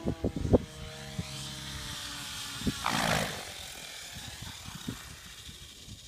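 Rave Ballistic 700 RC helicopter coming down to land: its rotor and drive whine, slowly dropping in pitch and fading, with a louder rush of blade noise about three seconds in. Wind thumps on the microphone near the start.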